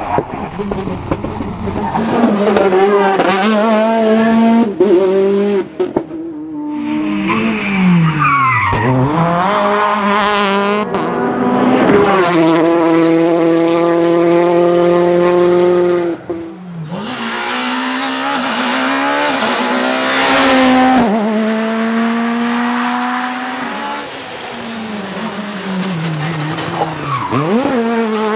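Rally cars at full throttle on a stage, one after another. The engines rev up through the gears, with the pitch dropping as cars pass by, and the sound changes abruptly several times as the clips cut. One car holds a high, steady note for a few seconds just past the middle.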